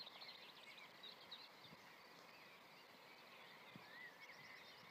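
Near silence: faint birds chirping and twittering, with a short whistled note near the end.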